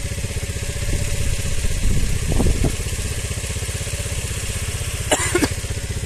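Motorcycle engine idling with a steady, even beat, with a short louder sound about two and a half seconds in.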